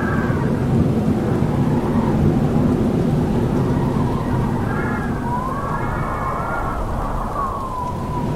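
Howling wind: a steady low rush with whistling tones on top that rise and fall in pitch. A howl swells about halfway through and slides down to a lower note near the end.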